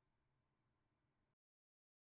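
Near silence: a very faint hiss that cuts off to complete digital silence about a second and a half in.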